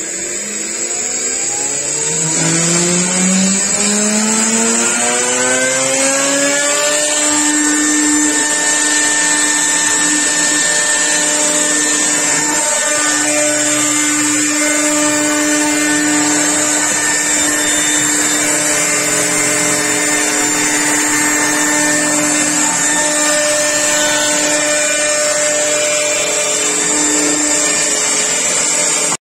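CNC router spindle spinning up: a whine that rises in pitch over about seven seconds, then holds at a steady high whine while the bit cuts a fretwork pattern through an MDF panel.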